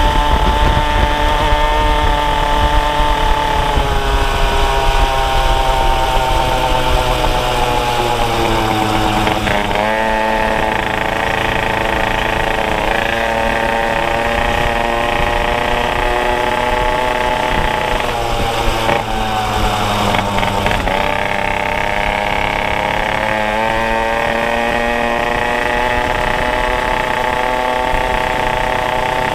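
Two-stroke scooter engine running under way, a buzzy engine note whose pitch sinks as it slows about a third of the way in and again about two thirds in, then climbs as it picks up speed, with low wind rumble underneath.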